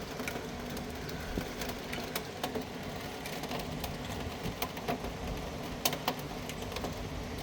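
Steady rain, with scattered drops ticking sharply close by over a low, even rumble.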